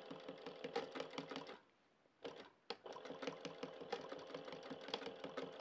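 Sewing machine running at a slow, turned-down speed, the needle clicking rapidly in short stitch runs that stop about one and a half seconds in and start again about half a second later. These are the back-and-forth tacking stitches that fix a webbing ladder to fabric.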